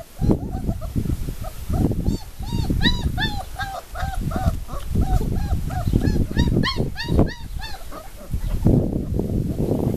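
Young puppies whimpering and squeaking in quick runs of short, rise-and-fall high-pitched cries, over bursts of low, gusty noise.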